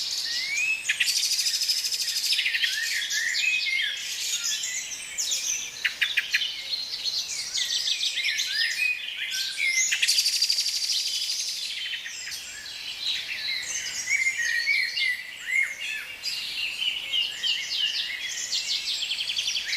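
Several birds singing and calling at once in a dense chorus of chirps and whistled phrases, with a fast buzzy trill about a second in and another around ten seconds in.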